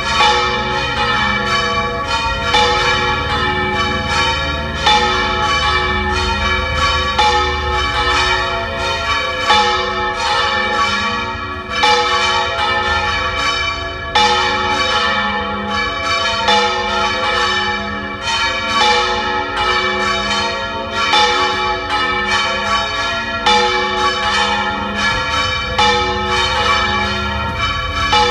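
Three bronze church bells of 182, 319 and 512 kg swinging full circle in the Valencian volteig style, the largest striking with a new clapper. Their strokes come every second or so and overlap into one continuous, uneven peal, each strike ringing on under the next.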